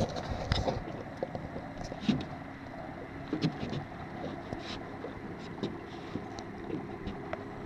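Steady open-air background of wind and water around a small boat, with scattered faint clicks and knocks.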